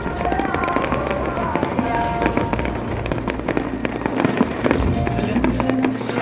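Fireworks going off in a dense string of bangs and crackles, with music playing underneath.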